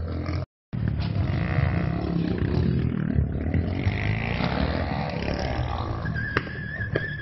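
Motorcycle engine running, with a brief dropout just after the start. A high steady squeal begins about six seconds in.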